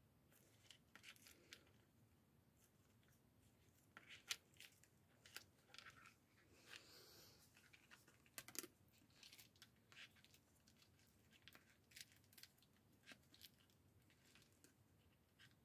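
Faint rustling and crinkling of paper and plastic craft supplies being handled, with scattered light clicks and taps and a few sharper clicks.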